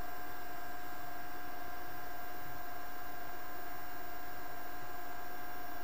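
Steady electrical hum with a constant hiss: the background noise of a voice-over recording setup, unchanging throughout.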